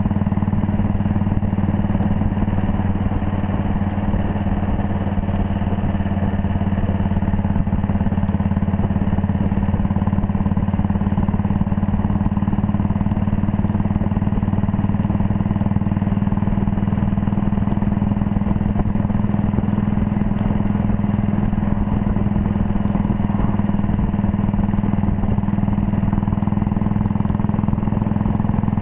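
1939 Red Panther Model 40's single-cylinder engine running at a steady cruising speed under way, its exhaust note holding one even pitch.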